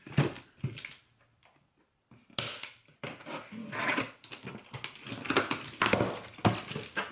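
Packing tape being slit with a blade along the seam of a cardboard box, a scratchy scraping with clicks and crackles that starts after a short lull. Then the cardboard flaps rub and crackle as they are pulled up.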